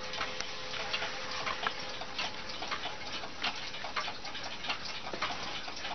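Juba mantel clock ticking, a steady train of quick, sharp ticks. A faint lingering tone dies away about a second in.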